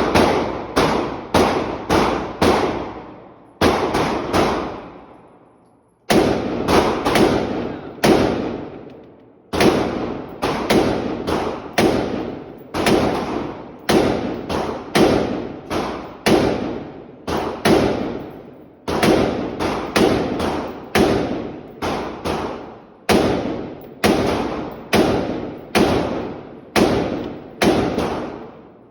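Rifle fired shot after shot in rapid strings, about two to three shots a second, each shot with a short fading echo. There is a pause of about two seconds a few seconds in.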